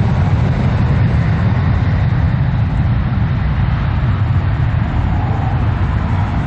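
Jet airliner engines: a loud, steady deep rumble.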